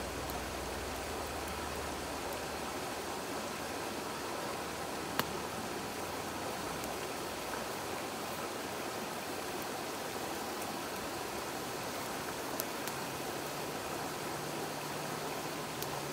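Steady rushing of a river or stream, with a few sharp pops from a crackling wood campfire, the loudest about five seconds in.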